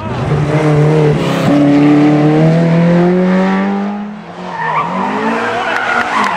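Historic rally car engine pulling hard, its pitch climbing steadily for about four seconds, then a short dip as the throttle comes off or a gear changes, before it picks up again.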